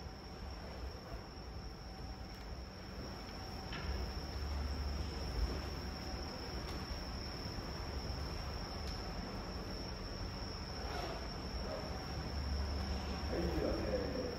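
A steady, unbroken high-pitched insect trill, like a cricket's, with a few faint knocks.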